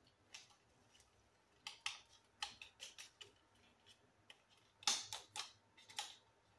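Faint crinkling and crackling of a bouillon cube's foil wrapper being peeled open by hand, in short scattered clusters of small clicks.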